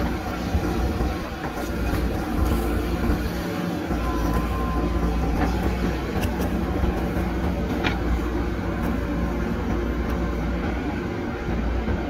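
JCB backhoe loader's diesel engine running steadily under load as the backhoe dumps soil and digs, with a few short knocks from the bucket and soil.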